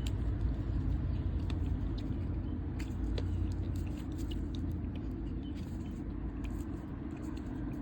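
Trading cards being handled and sorted, with light scattered clicks and rustles of card stock over a steady low background rumble.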